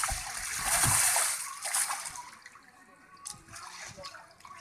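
Water splashing and sloshing as a clear inflatable water-walking ball rolls and lurches across a shallow pool, loudest about a second in and dying down after about two seconds.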